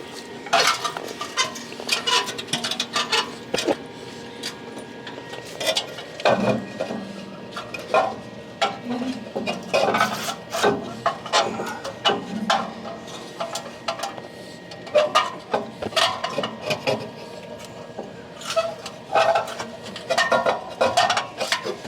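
Irregular metallic clinks, clanks and rattles, as of metal tools or parts being handled and set down, in scattered clusters throughout.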